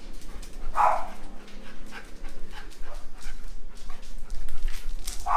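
Alaskan malamute giving two short barks, one about a second in and one near the end.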